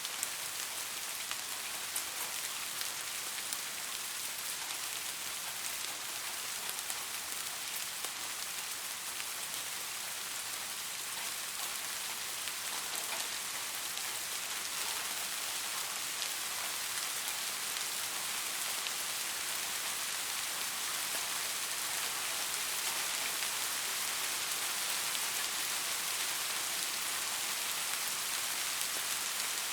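Steady rain falling on a surface, an even hiss of many small drops with scattered individual drop ticks.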